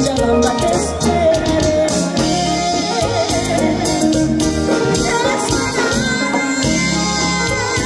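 Live cumbia band playing over a PA: electric guitar, bass and drum kit with a steady dance beat.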